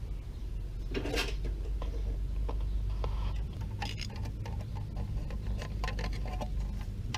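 Scattered small clicks, taps and rubs of wires and metal parts being handled in a metal air-conditioner disconnect box, with a rustle about a second in, over a steady low rumble.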